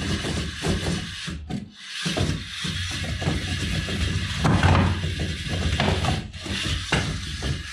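LEGO Technic rover's plastic wheel clusters knocking and scraping on wooden planks as it climbs a stepped stack, an irregular clatter of knocks and rubs. The clatter breaks off briefly about one and a half seconds in, and the loudest knocks come a little past halfway.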